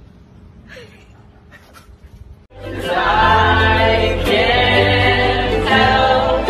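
Low background sound with a few faint clicks, then about two and a half seconds in, music with several voices singing together starts suddenly and plays loudly.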